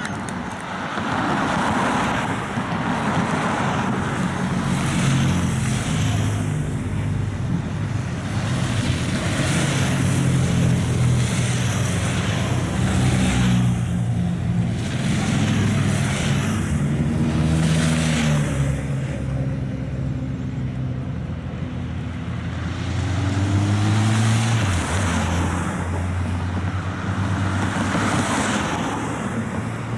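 Race-convoy motorcycles and cars passing close by one after another, engine notes swelling and falling away with each pass.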